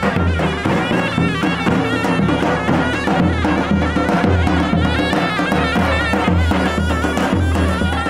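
Davul and zurna playing a folk dance tune: the zurna's shrill, reedy melody winds over the big double-headed drum's deep, regular beats.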